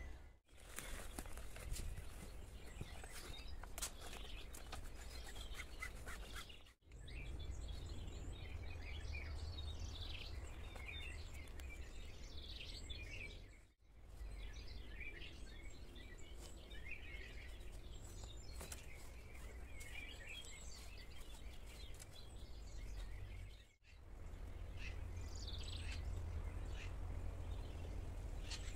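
Forest birds chirping and calling here and there over a steady low rumble, with a few clicks in the first seconds. The sound cuts out briefly four times.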